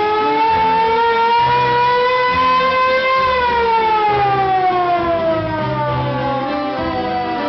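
A siren wailing, its pitch climbing slowly for about three seconds and then gliding steadily down, loud over the bass notes of dance music.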